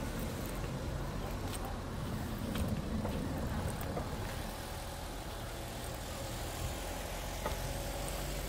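A motor vehicle's engine running with a steady low rumble, heard in outdoor street ambience.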